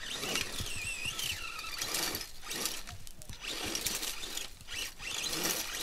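Off-road race buggy's engine revving high, its pitch wavering up and down, amid bursts of noise.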